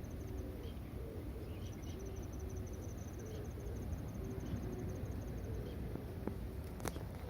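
An insect trilling: a fast, even run of high-pitched pulses lasting about four seconds, over a steady low background. There is a short sharp click near the end.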